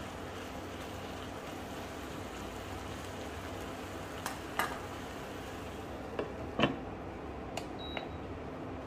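Stir-fried beef, macaroni and broccoli sizzling steadily in a skillet. In the second half come a few sharp clinks and knocks as a glass pan lid is put on, the loudest about two-thirds through.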